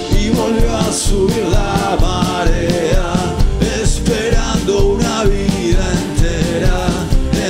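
A live band playing a song: a male lead voice sings over upright double bass, acoustic guitar and a drum kit keeping a steady beat.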